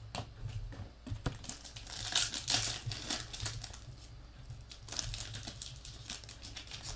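Foil trading-card pack wrapper (Panini Mosaic football) being crinkled and torn open by hand, in crackly bursts about two seconds in and again around five seconds.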